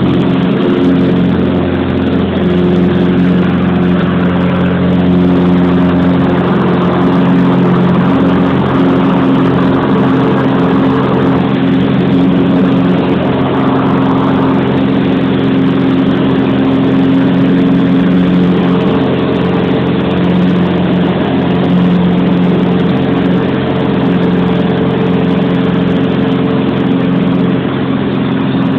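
Light aircraft's engine and propeller droning steadily at climb power, heard from inside the small cabin as the plane climbs away after takeoff.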